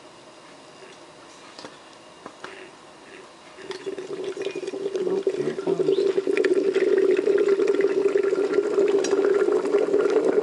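Sunbeam C30 Coffeemaster vacuum coffee maker with its water coming to the boil: a few faint ticks, then about three and a half seconds in a bubbling liquid sound starts and swells to a loud, steady boil.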